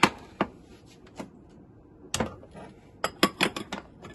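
Kitchen bowls and spoons clinking and knocking: a few scattered sharp clinks, then a quick run of about five near the end.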